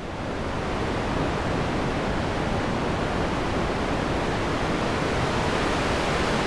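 Synthesized wind: white noise through a Vult Boomstick sallen-key low-pass filter, its cutoff moved by a Vult Caudal chaos source, giving a steady hiss that swells in over the first second. It is meant as a gusty, changing wind, with high frequencies poking through when the filter opens.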